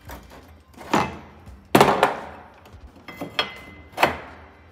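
About five sharp metal clanks and knocks, each ringing briefly, the loudest about two seconds in: a steel hinge bracket being slid out and a new rear bumper bracket slid into place on a Honda Pioneer 520's rear frame.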